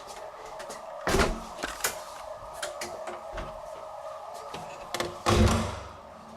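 An abandoned hospital's alarm sounding steadily, with two loud thumps, one about a second in and a longer, echoing one near the end.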